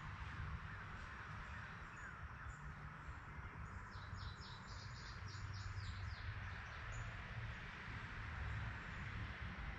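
Faint outdoor ambience: steady background noise and low rumble, with a bird calling a quick series of short high notes, about four a second, for a couple of seconds midway.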